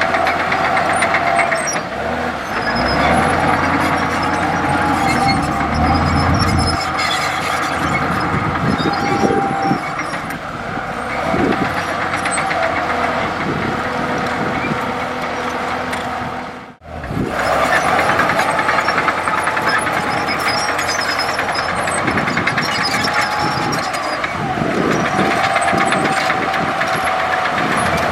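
Komatsu D65E bulldozer's diesel engine running steadily with machinery clatter. The sound cuts out for a moment about seventeen seconds in.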